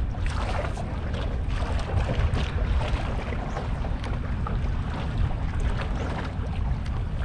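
Wind buffeting the microphone, a steady low rumble, over water lapping against a small boat's hull.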